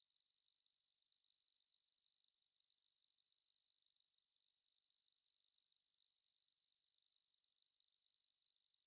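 Steady, high-pitched pure electronic tone that holds one unwavering pitch: a synthesized tinnitus ringing.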